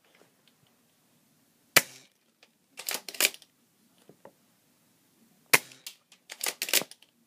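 Shotgun-style BB gun fired twice, each shot a single sharp crack, about four seconds apart. Each shot is followed about a second later by a quick run of clicks and rattles.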